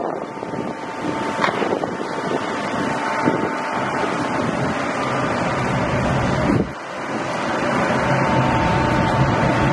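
Small passenger boat's engine running steadily under way, with a thin steady whine over the engine and water noise, and wind on the microphone. The sound drops briefly about seven seconds in.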